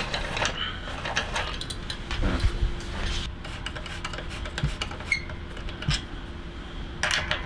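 Light metal clicks and knocks of tools and bicycle parts being handled during a road bike build, over a faint steady hum, with a short cluster of clicks near the end.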